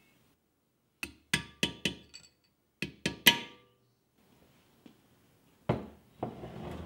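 Sharp knocks on metal gearbox parts: four quick strikes, then three more, each with a short metallic ring, followed near the end by a rougher clatter.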